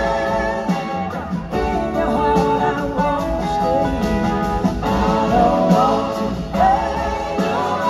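Live blues-rock band playing an instrumental passage: an electric guitar leads with bending, gliding notes over drums and the rest of the band.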